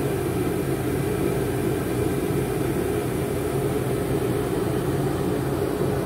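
Hot-air sneaker dryer running: a steady whirring drone from its blower with a low hum under it.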